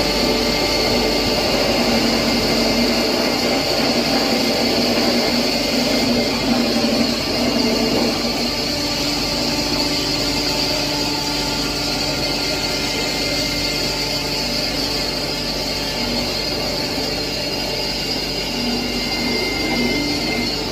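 20 HP blower-type impact pulverizer running at speed while grinding rice husk fed into its hopper. A steady, loud machine noise that holds its pitch, with several constant tones over an even rush.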